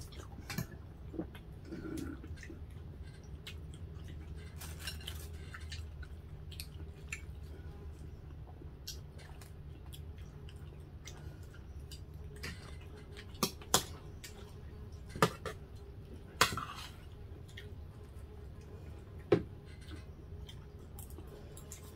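Spoons and forks clinking against plates and bowls during a meal, with chewing, over a steady low hum. A handful of sharper clinks come in the second half.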